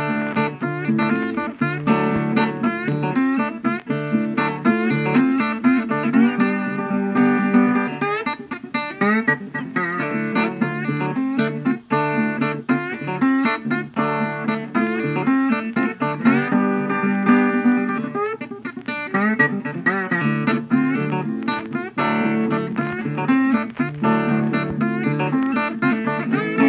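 Background music: plucked guitar playing a continuous run of notes.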